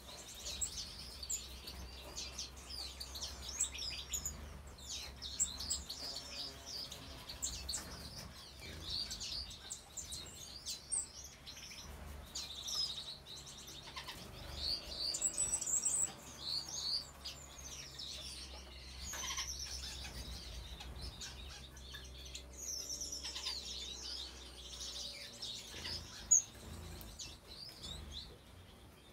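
A mixed flock of small exotic aviary finches chirping, with many short, high calls overlapping throughout and one louder call near the end.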